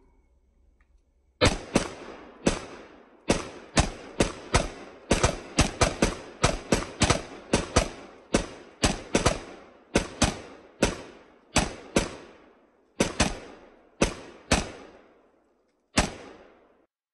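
A pistol fired rapidly in quick strings, more than thirty shots at up to about four a second with short pauses between strings, each shot trailing off in a brief echo.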